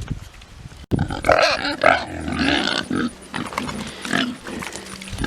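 Pigs grunting close to the microphone, starting abruptly about a second in.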